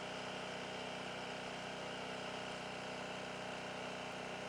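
An engine idling steadily, a constant even hum.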